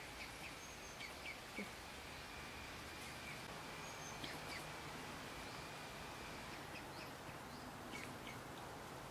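Quiet outdoor background with short, high bird chirps and peeps now and then, a cluster in the first two seconds and more around four and eight seconds in.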